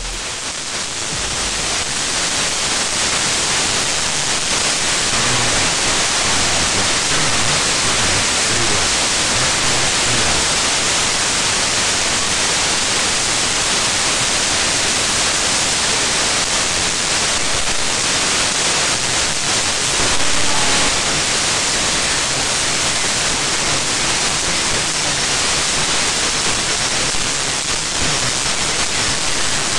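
Radio static from a USB RTL-SDR receiver tuned to the 2-meter band during a satellite pass: a steady, loud hiss with something just starting to be heard in it, not decipherable.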